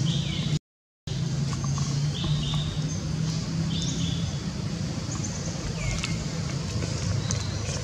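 Outdoor ambience with a steady low engine hum of passing traffic and short high chirps scattered through it, cut by a half-second dropout to silence about half a second in.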